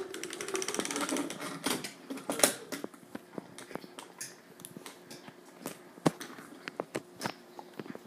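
Toy train cars being handled and set down on a wooden tabletop: irregular small clicks and knocks of the cars' wheels and bodies, with a sharper knock about two and a half seconds in and another about six seconds in.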